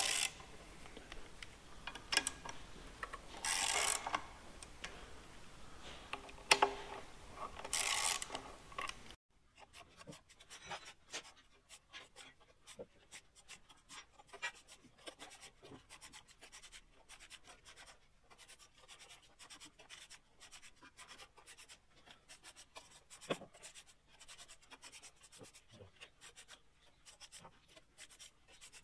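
Ratchet socket wrench turning the clutch housing bolts of a Centurion tank clutch, wound out a turn at a time to relieve the pressure of the clutch plates. A few rasping ratchet strokes come first; about nine seconds in the background drops away suddenly and a long run of fast, light clicks follows.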